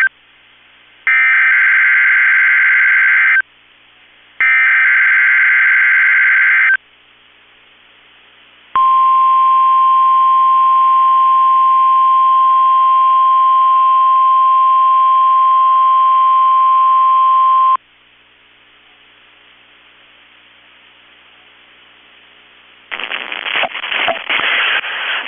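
NOAA Weather Radio weekly test alert: two SAME digital header data bursts, each about two and a half seconds long with a second's pause between, then the steady 1050 Hz warning alarm tone held for about nine seconds. Faint radio hiss follows, and an announcer's voice starts near the end.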